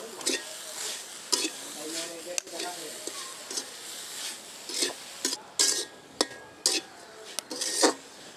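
Metal spatula scraping and stirring grated coconut and sugar around a large metal karahi as the pitha filling cooks down over a wood fire. The scrapes come irregularly, with several sharper clinks against the pan in the second half.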